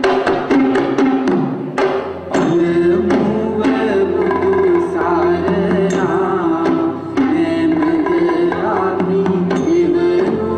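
Dance music with hand-drum strokes. It opens with a quick run of sharp drum hits, and a wavering melody over a steady low drone comes in about two seconds in.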